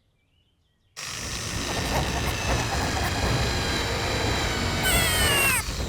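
Cartoon sound effect: a loud, steady rumble that starts abruptly about a second in and builds, with several falling whistling tones near the end.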